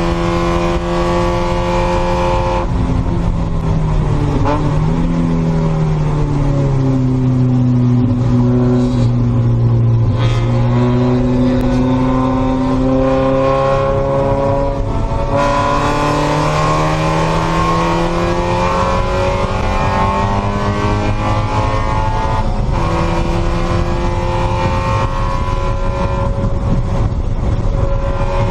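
Spec Miata race car's four-cylinder engine heard from inside the cockpit. Its revs fall as the car brakes for a corner, with a brief rise at a downshift about five seconds in, then climb steadily in third gear, drop at a shift to fourth about 22 seconds in, and climb again.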